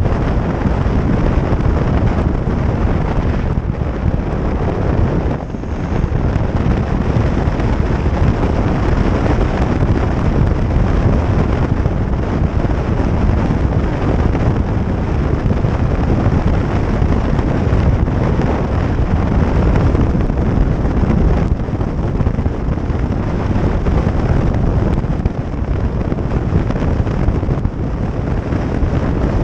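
Steady wind rush buffeting the microphone of a motorcycle riding at speed, with road and engine noise mixed in beneath.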